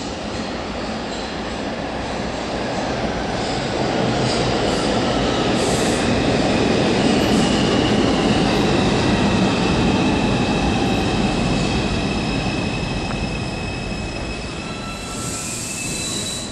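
R142 New York City subway train pulling into the station and braking, its wheels and motors rumbling louder toward the middle of the run and then easing off. Several high steady whining tones from the wheels and propulsion come in as it slows, with a short hiss near the end.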